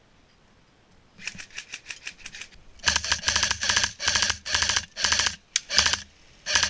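An AKS-74U-style electric airsoft rifle firing on full auto: a run of lighter rapid clicking, then about seven short bursts of fast mechanical clatter over the last few seconds.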